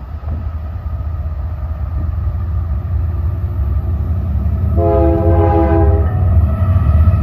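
Union Pacific freight train with its GE C45ACCTE lead locomotive approaching at speed, the low diesel rumble growing steadily louder. About five seconds in, the locomotive horn sounds one short chord blast of a little over a second.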